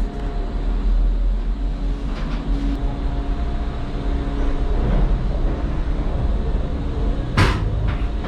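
Disney Skyliner gondola cabin moving slowly through the station machinery, with a steady mechanical hum over a low rumble. There are a couple of light clicks about two seconds in and one sharp, brief noise near the end.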